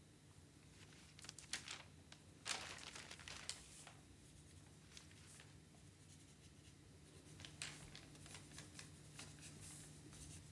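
Faint rustling of a paper sheet and a pencil scratching across it, in short bunched strokes, over a steady low room hum.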